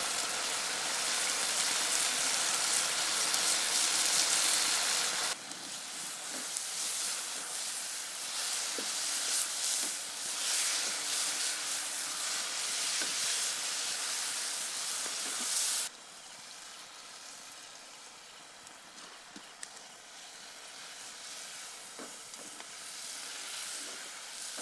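Mushrooms frying and sizzling in a pan, with a few faint clicks of stirring. The sizzle drops suddenly in loudness about five seconds in and again about sixteen seconds in.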